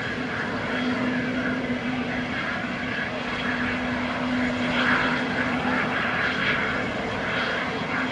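Airbus A320neo's CFM LEAP-1A turbofan engines running at taxi power as the airliner rolls along the taxiway: a steady low hum over an even jet rush.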